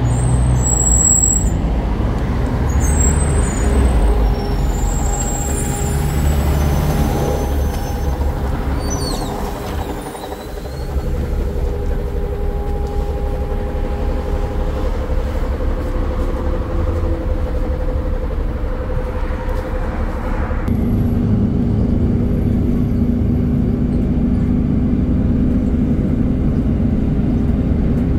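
MAZ-203.945 city bus with a Weichai WP7NG280E51 natural-gas engine, running as it stops with brief high squeals and hisses in the first few seconds. About two-thirds of the way through, its engine sound steps up and holds steady as it pulls away, heard from inside the bus.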